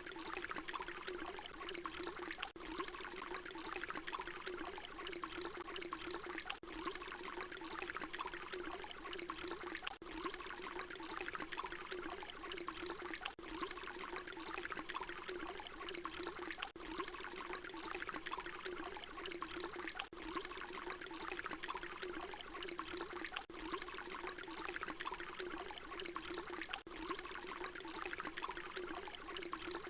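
Water pouring in a steady continuous stream, splashing into water below. A brief dip about every three seconds marks where a short recording is looped.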